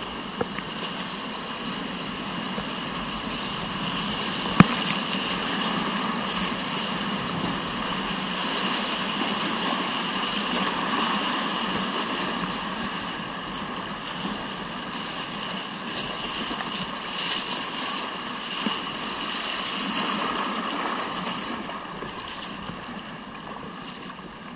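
Rushing whitewater of a mountain river rapid, swelling louder towards the middle and easing off near the end, with one sharp knock about four and a half seconds in.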